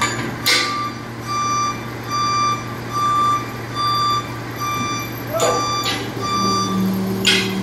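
Reversing alarm on a large TCM diesel forklift, beeping steadily about once every 0.7 s over the low running of its engine. A few short sharp noises come in between, and a lower drone sets in about six seconds in.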